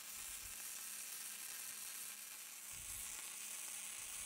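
Self-shielded flux-cored wire-welding arc running steadily as a bead is laid, an even high-pitched sizzle that cuts off abruptly at the end when the arc stops.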